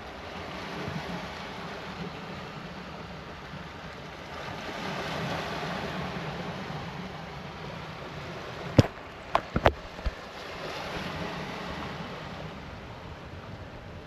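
Sea waves washing in with wind, the noise swelling and easing slowly. About nine seconds in come four sharp clicks or knocks within a second or so.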